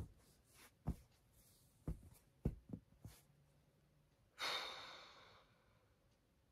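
A person sighing: one long exhaled breath about four and a half seconds in, fading over about a second. It follows a few soft clicks.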